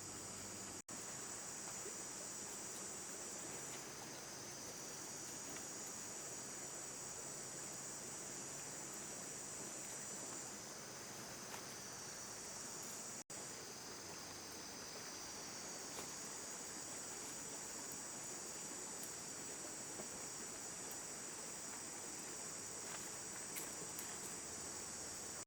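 Chorus of night insects such as crickets, a steady high-pitched trill, cut by two very brief drop-outs.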